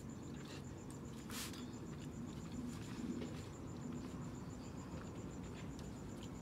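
Close-miked chewing of a mouthful of rice and salmon croquette: soft wet mouth clicks and smacks, one sharper smack about a second and a half in, over a faint steady high-pitched electrical whine.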